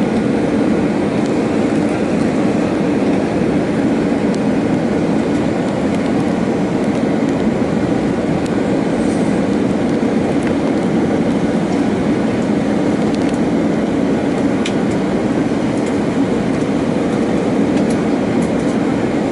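Steady jet engine and airflow noise heard inside an airliner passenger cabin during the descent to land.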